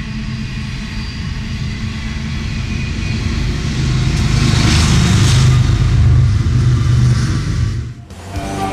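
A freight train passing close: steel wheels rolling on the rails. About four seconds in, two BNSF diesel locomotives come by, their engines droning louder. The sound dips sharply near the end.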